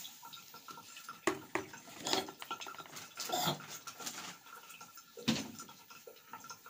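Scattered light knocks and clatter of small objects being handled in a small tiled bathroom, a few separate strokes a second or so apart.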